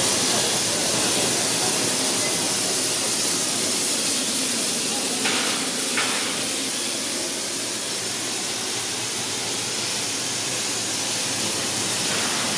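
Steam locomotive 3642 hissing steam steadily as it moves off, with two short knocks about five and six seconds in.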